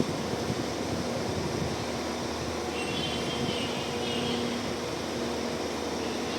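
Steady running noise inside a passenger train carriage: an even rumble with a low hum, and a faint high whine briefly about halfway through.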